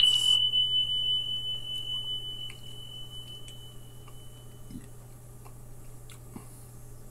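A single high ringing tone, struck sharply at the start and fading away over about four and a half seconds, with faint chewing underneath.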